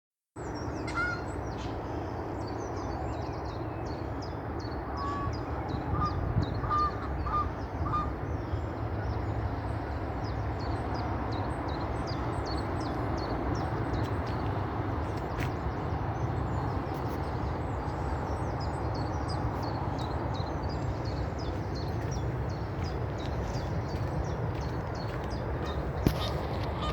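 Many birds calling at once, with rapid high chirps throughout and a few clearer, lower notes about five to eight seconds in, over a steady low rumble.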